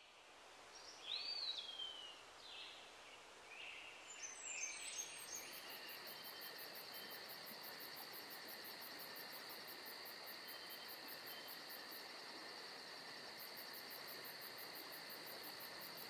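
Outdoor ambience: a steady rush of water from a rock waterfall spilling into a pool, with a few bird calls in the first few seconds, then crickets trilling steadily from about five seconds in.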